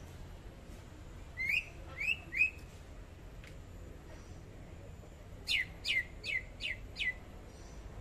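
Caged green leafbird (cucak ijo) singing: three short rising whistled notes, a pause, then a quick run of five sharp descending notes.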